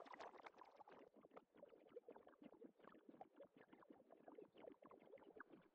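Near silence, with a very faint, rapid crackle of tiny ticks.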